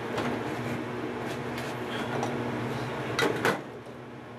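Steady hiss of a gas burner under a simmering saucepan, then the pot lid clinks twice against the aluminium pan as it is lifted off, about three seconds in.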